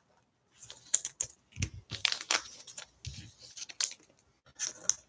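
Basketball trading cards being handled and flipped through by hand: an irregular run of light clicks, slides and crinkles, with a few soft thumps.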